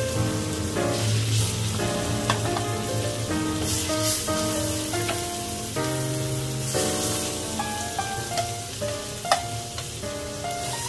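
Food sizzling as it fries in a pan, with a few sharp clicks along the way, under background music of held melodic notes.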